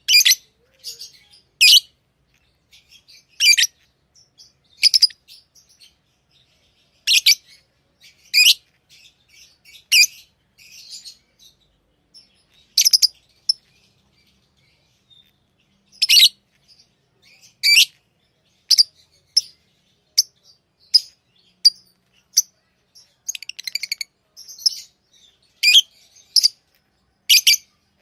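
Pet lovebirds chirping: short, shrill calls every second or two, with a pause of a couple of seconds about halfway through and a quick run of softer chirps later on.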